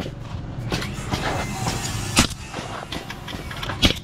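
Pneumatic framing nailer firing twice, about a second and a half apart, driving nails through wooden blocking into a curved header. A steady low hum runs underneath.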